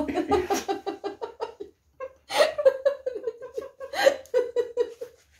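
Two women laughing together: a run of quick laughs, a short break about two seconds in, then more laughter that dies away near the end.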